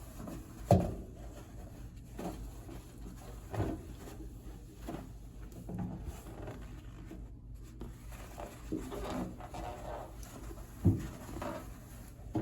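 Handling noises while cleaning a microwave: a few separate knocks, the loudest about a second in and another near the end, with quieter rubbing and shuffling between.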